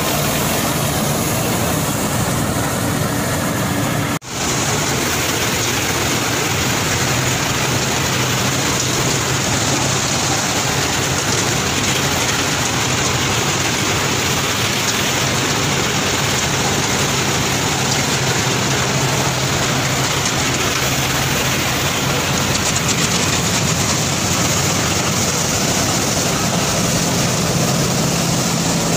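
Panesar TMC 800 tractor-driven mini combine harvester at work: the tractor engine and the harvester's threshing mechanism run steadily under load. The sound cuts out for an instant about four seconds in, then resumes unchanged.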